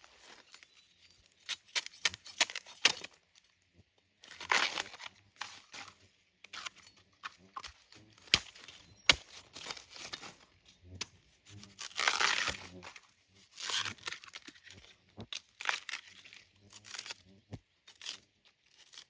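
Bamboo shoots being handled and peeled by hand: irregular tearing and crackling of their stiff husks, with a few sharp snaps.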